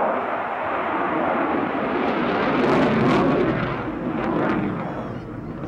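Jet noise from an RAF Eurofighter Typhoon's two EJ200 turbofan engines during a display flight: a loud, rushing sound that peaks about three seconds in, then fades as the jet moves away.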